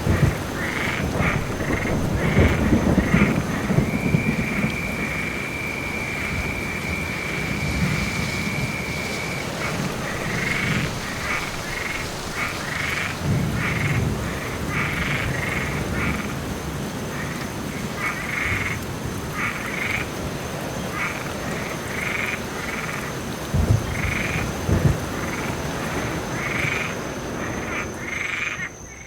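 Frogs calling in a chorus of short, repeated croaks over steady rain, with one long unbroken trill a few seconds in. Low rumbles of distant thunder swell and fade several times.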